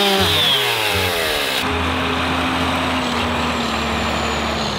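A chainsaw winding down from a rev in the first second and a half. Then a large John Deere tractor's diesel engine running steadily, its pitch sagging slowly near the end.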